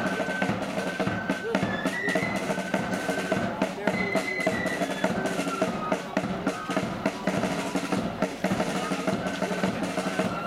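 Marching flute band playing a tune: flutes carry a stepping melody over rapid side-drum rolls and steady bass drum beats.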